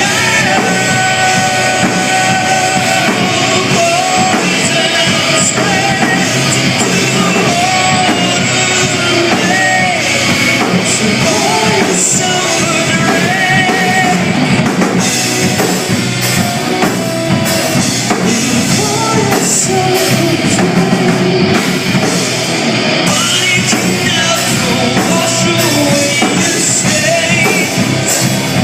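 A rock band playing live, with drum kit, instruments and a sung vocal line.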